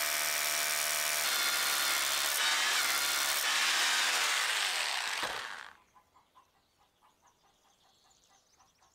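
Power drill with a long masonry bit boring down into a stone block, running steadily under load, then stopping about five and a half seconds in.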